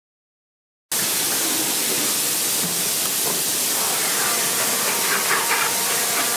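A loud, steady hiss that starts abruptly about a second in, with faint whirring tones under it in the second half, as an SMT solder-paste stencil printer runs its squeegee across the stencil.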